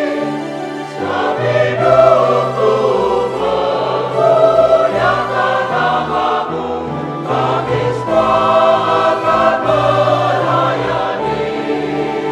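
Mixed church choir singing a hymn in Indonesian, the phrases swelling and easing.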